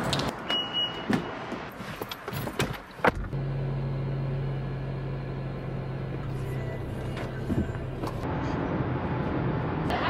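Footsteps and small handling clicks on concrete, then a sharp click and a steady low car hum that holds for about five seconds.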